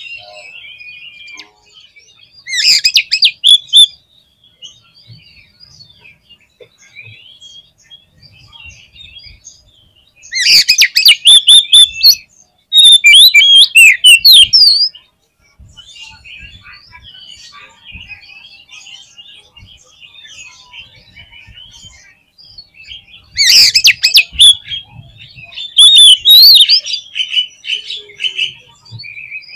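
Oriental magpie-robin (kacer) singing: soft, continuous twittering broken by about five loud outbursts of harsh, rattling notes and whistled phrases. This is the excited, agitated song played to stir a caged male into answering.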